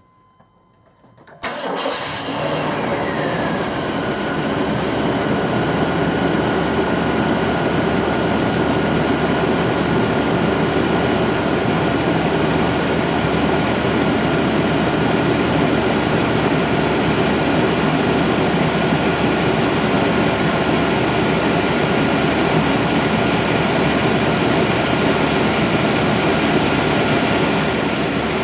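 A 1997 GMC 1500's 5.7L Vortec V8 starting about a second and a half in, catching at once and then running steadily at idle. A high whine drops in pitch over the first couple of seconds as the start-up revs settle. The engine is running on a newly replaced fuel filter, the old one clogged and blamed for erratic fuel pressure.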